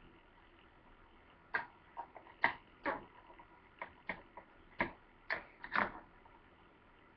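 Red-handled kitchen scissors snipping through bacon over a plastic cutting board: a run of about a dozen sharp clicks, irregularly spaced. They start about a second and a half in and stop about six seconds in.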